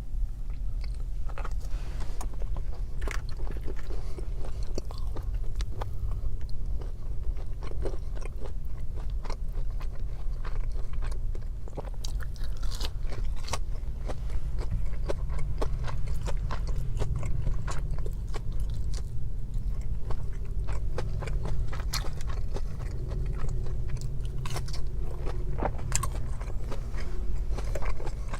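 Close-miked eating: biting and chewing with many small mouth clicks, some crunching, and utensil or container scrapes, over a low steady hum.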